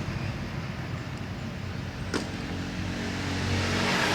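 A motor engine running in the background, getting louder in the second half, with a single sharp click about two seconds in.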